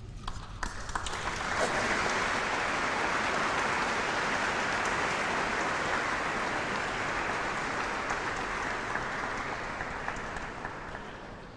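Audience applauding: a few scattered claps in the first second or so build into steady, full applause, which fades away near the end.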